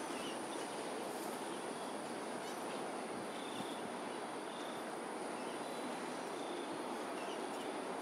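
Steady outdoor urban ambience at dusk: a constant hum of distant traffic under a steady high-pitched drone, with a few faint, short bird calls now and then.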